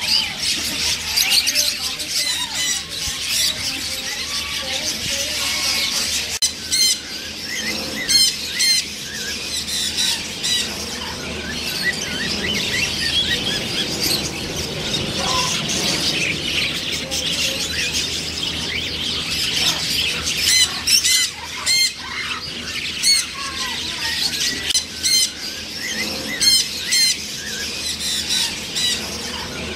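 A group of macaws squawking and chattering over one another, with sharp, loud squawks standing out every few seconds.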